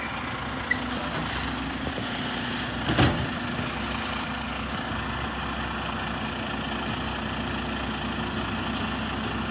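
Automated side-loader recycling truck running steadily at the curb while its arm works the carts, with a short, sharp noise about three seconds in.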